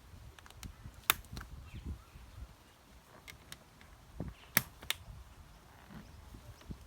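Hard plastic headlight parts clicking and knocking as they are handled and fitted. There are a few sharp clicks, the loudest about a second in and two more close together between four and a half and five seconds in.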